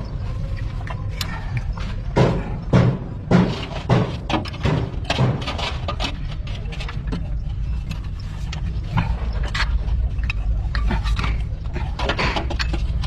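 Repair work on a shock absorber: a run of sharp knocks about every half second for a few seconds, then lighter scattered clicks, over a steady low hum.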